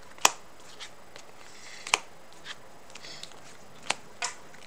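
Trading cards being taken off the deck and set down on a playmat as they are milled: several sharp card snaps at irregular intervals, the loudest about a quarter second in and just before two seconds in, with soft sliding of cards between.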